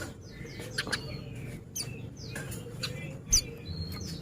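White-eye (pleci) giving short, high, quick chirps with sharp clicks between them; the loudest chirp comes a little past three seconds.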